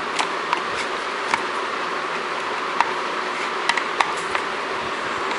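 Screwdriver turning a screw down onto crimped ring terminals on an LED panel's power connector: scattered small sharp clicks and ticks of metal on metal, over a steady background hiss.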